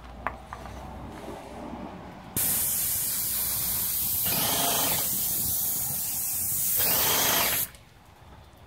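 Wagner Airless Sprayer Plus spray gun spraying paint: about two seconds in, a loud steady hiss starts suddenly, runs for about five seconds and cuts off sharply.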